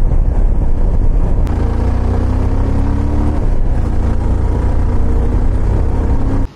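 Motorcycle riding with heavy wind rumble on the microphone. The engine note comes through about one and a half seconds in, rises as the bike accelerates, then holds steady.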